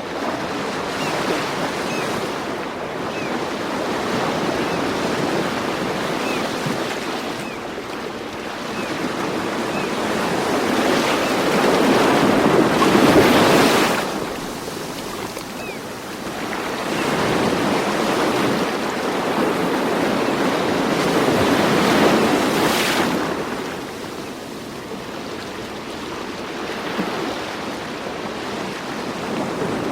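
Ocean surf: waves washing in and drawing back, swelling twice to a peak, a little before the middle and again about three-quarters through, each time falling away quickly.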